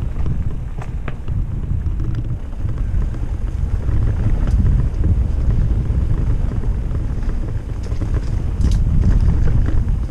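Mountain bike riding a narrow dirt trail, with wind buffeting the microphone and the tyres rumbling on the dirt. Now and then the bike gives a sharp click or rattle.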